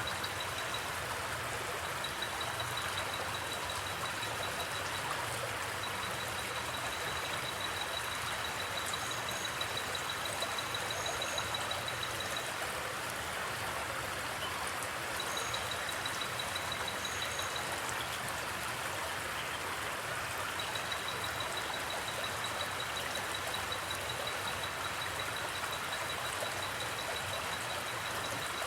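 Steady rush of a river over its bed, with a cricket trilling in long runs of rapid pulses that stop and start again. A few brief high chirps come through about a third and a half of the way in.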